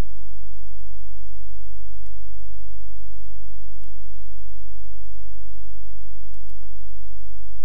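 Steady low electrical hum from the recording setup, with a few faint mouse clicks, two of them close together about six and a half seconds in.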